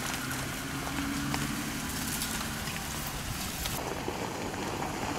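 Jeep Gladiator Rubicon driving along a leaf-covered dirt trail: a low, steady engine hum with the rolling noise of tyres over leaves and dirt. The sound changes about four seconds in.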